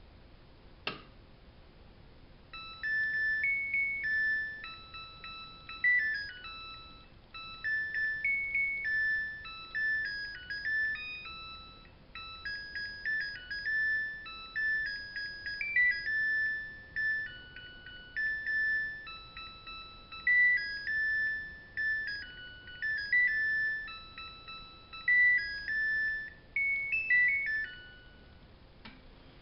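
Samsung washing machine's built-in electronic melody: a tune of clear beeping notes from the control panel's buzzer, lasting about 25 seconds, typical of the end-of-cycle signal that says the wash is finished. A single click comes just before it, about a second in.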